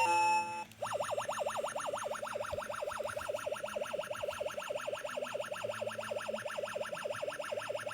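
Tomy GYA electronic game toy: a short run of beeping notes ends just after the start, then from about a second in a fast electronic warble, one tone sweeping up and down about five times a second, held steadily.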